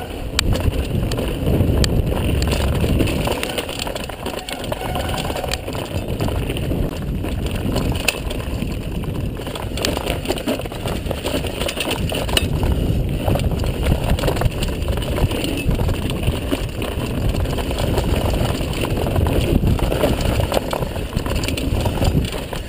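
Mountain bike rolling fast down a dirt trail: tyres running over dirt, with the bike's chain and parts rattling and clicking over bumps. A constant low rumble of wind buffets the camera microphone.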